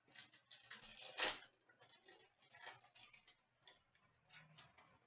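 Hockey card pack being handled: the foil wrapper crinkling and cards sliding and flicking against each other, a quick run of small crackles and clicks that is busiest in the first second and a half and thins out later.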